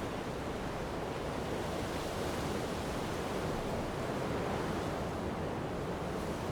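Strong wind blowing along a coast with surf breaking, an even, unbroken rush of noise at a steady level.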